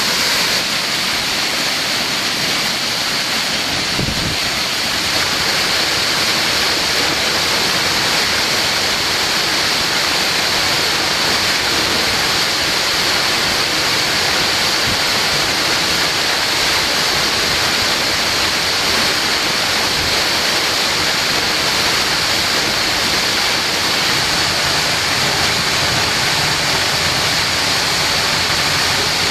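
Steady, loud rush of a rainforest waterfall, an even unbroken roar of falling water with a bright high hiss on top. There is one soft low knock about four seconds in.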